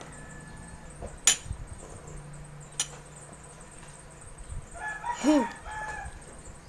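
Two sharp clinks of a fork on a plate, about a second and a half apart, then a rooster crowing once, about five seconds in.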